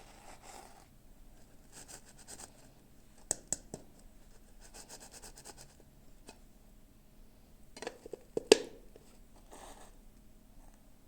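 Toy packaging being handled and opened: scratchy rustling and scraping in several short bursts, with a few sharp clicks, the loudest a little over eight seconds in.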